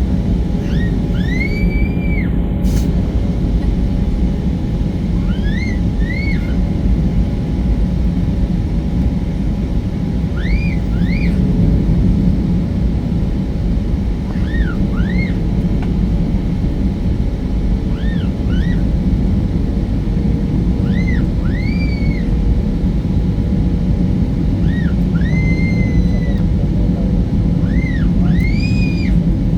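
Airbus A320 cabin noise: a loud, steady rumble of the engines and airflow, with a few steady hums. Over it come short, high-pitched squeals that rise and fall, in ones and pairs every few seconds.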